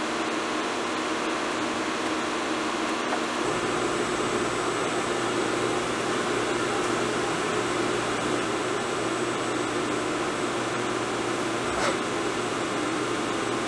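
Steady fan-like whir of a CNC vertical mill as a touch probe in its spindle probes the workpiece, with no cutting. A low hum and a faint high whine join a few seconds in.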